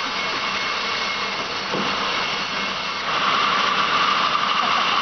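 Sawmill saw running and cutting through a log, a steady mechanical noise that gets louder about three seconds in.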